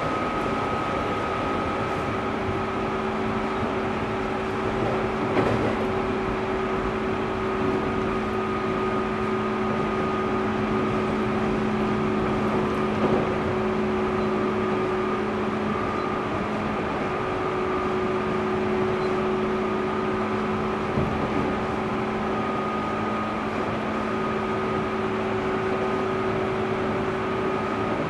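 205-series electric train running at a steady speed, heard inside the motor car: the external-fan MT61 traction motors give an even hum with several steady whining tones over rumbling wheel-on-rail noise. A few short knocks come from the running gear.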